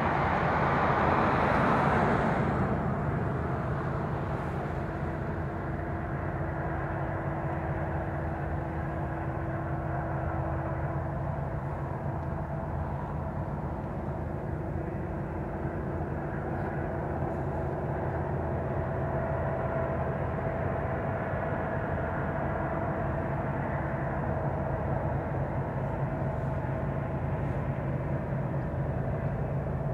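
Diesel locomotive engines running with a steady drone and hum, a little louder for the first few seconds before settling to an even level.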